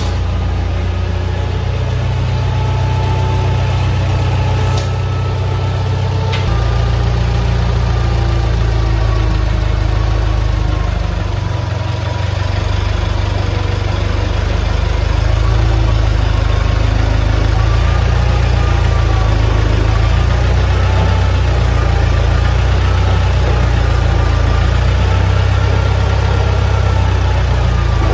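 Massey Ferguson 165 tractor engine running at a steady idle, getting louder about six seconds in.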